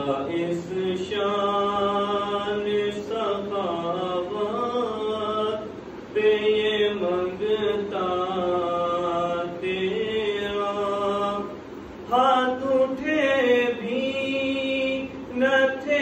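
A young man's solo voice chanting devotional verses unaccompanied, in long, slowly bending melodic phrases with a short breath about every five or six seconds.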